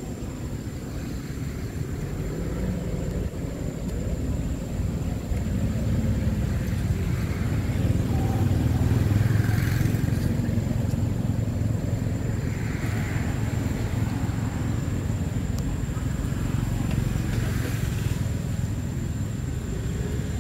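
A motor vehicle's engine rumbling, swelling to its loudest about halfway through and then easing off.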